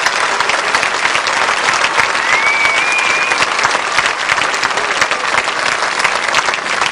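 Grandstand crowd applauding steadily, a dense patter of many hands clapping. A single whistle rises and holds for about a second, about two seconds in.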